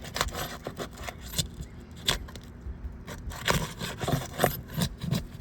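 Asphalt roof shingles being pried apart at their seal strip: irregular scraping and crackling clicks as the sealed tabs are broken loose, the brittle shingle tearing as it comes up.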